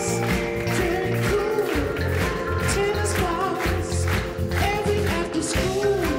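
Upbeat pop music with a steady beat and a melody line.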